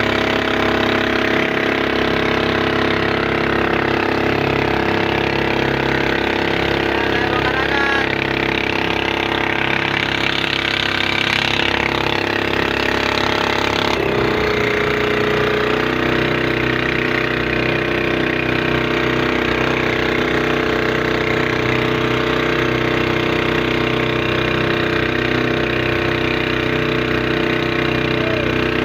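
Small pull-start boat engine running steadily as the boat moves across the water. Its note shifts slightly about halfway through.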